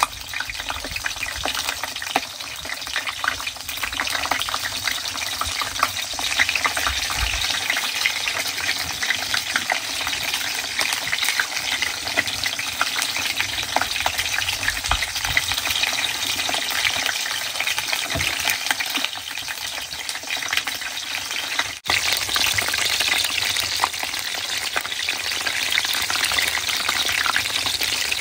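Stuffed eggplant halves frying in shallow oil in a wide metal wok, a steady crackling sizzle.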